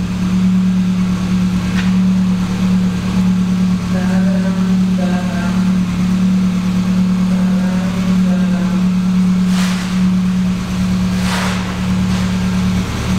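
Lada Granta Sport's freshly rebuilt engine idling with a steady, even note.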